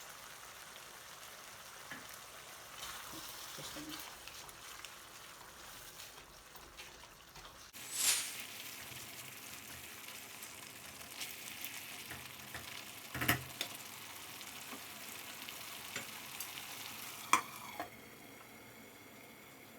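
Chicken curry sizzling in a hot pan as it is stirred, with a few sharp clinks of the utensil against the pan.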